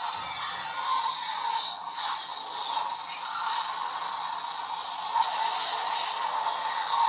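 Electronic sound effect from a Kamen Rider transformation-belt toy's speaker: a steady hissing, crackling noise.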